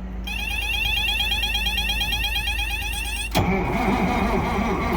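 A fast warbling electronic warning tone sounds for about three seconds and cuts off abruptly. The cold Cat C13 diesel then starts cranking over, turning with an uneven, labouring pulse as the starter drags it at freezing temperature.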